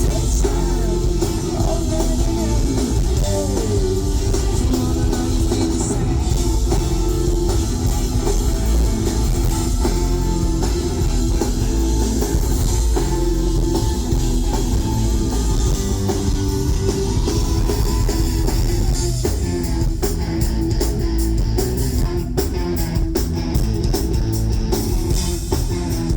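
Rock band playing live through a festival PA: electric guitars and a drum kit in a wordless stretch of the song.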